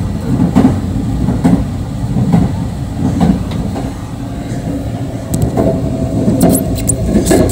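Running noise of a JR 681 series electric limited-express train heard from inside the car's deck: a steady low rumble with regular knocks about once a second. A few sharp clicks and rattles come near the end.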